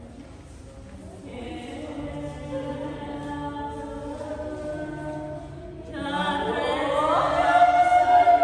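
Group of voices chanting in long, held notes. About six seconds in a louder voice comes in, slides upward and holds a long high note.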